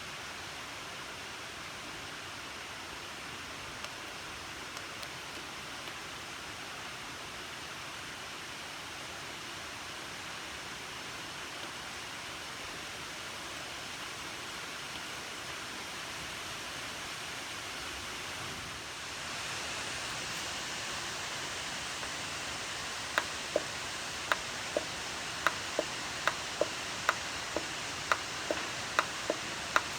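TIG welding arc from a hitbox TIG200PACDC welder, hissing steadily. It gets a little louder and brighter about two-thirds of the way through. Near the end, sharp ticks come at roughly two a second.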